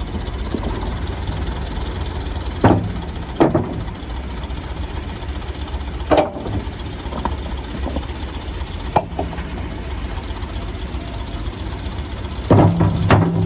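Heavy machinery's diesel engine running steadily with a low rumble, broken by sharp metallic clanks and knocks: two about three seconds in, single ones around six and nine seconds, and a quick cluster near the end.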